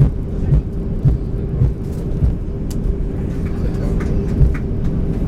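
Inside an Airbus A320 cabin, a steady low rumble and a constant hum, with a string of low bumps from the aircraft rolling along the ground after landing.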